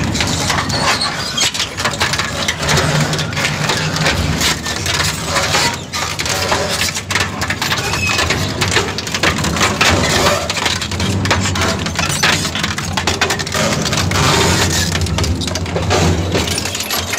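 Twin-shaft industrial shredder running: a steady low motor hum under a dense, irregular stream of sharp cracks and crunches as its toothed rotors break up material.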